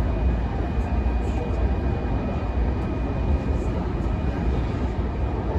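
Running noise inside a JR East E233-1000 series electric train car at speed: a steady low rumble of wheels on rail and car body, with a faint steady high whine.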